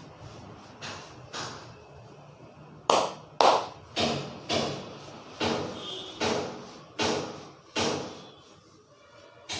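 Hands striking a person during a traditional Indian head massage: a run of slaps and taps, a couple of soft ones at first, then about ten sharper ones roughly every half second, each dying away quickly.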